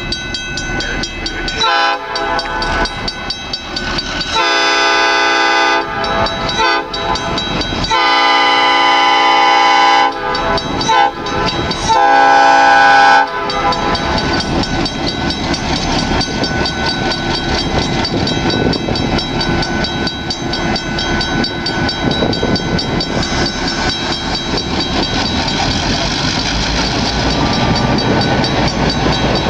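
Diesel locomotive horn sounding a series of long and short blasts for a road grade crossing, ending about thirteen seconds in. Then two EMD GP16 locomotives' 16-cylinder two-stroke diesels and wheels rumble as they roll across the crossing, growing louder toward the end.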